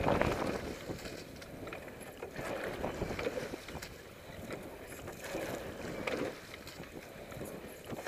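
Wooden rowing boat being rowed: oar strokes work in the water with a swell every few seconds, and wind rumbles on the microphone.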